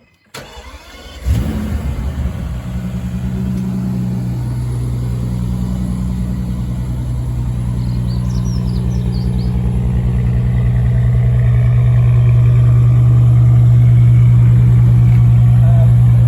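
Bentley Continental GT Speed's twin-turbo W12 engine starting: a brief crank, then it fires with a loud flare about a second in and settles into a steady idle that grows slightly louder later on.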